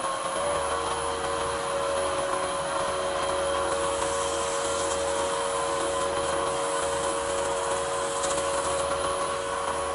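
Wood lathe motor running steadily at moderate speed, spinning a pen blank on its mandrel while a wet micro-mesh sanding pad rubs against the turning wood.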